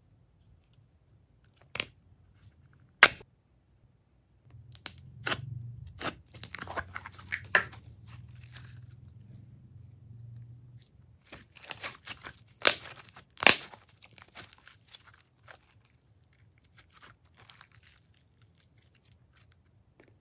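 Close-up handling noises: two sharp clicks, then several seconds of crackly tearing and crinkling, then a cluster of sharp snaps and a few fainter clicks near the end.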